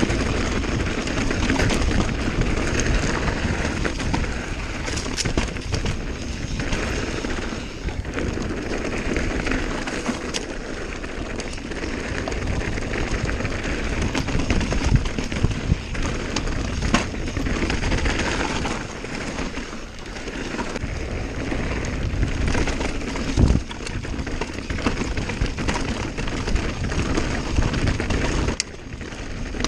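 Santa Cruz Nomad full-suspension mountain bike ridden fast down a dry dirt singletrack: a steady rush of tyres and wind on the microphone, with a constant clatter of rattles and sharp knocks as the bike runs over rocks and roots.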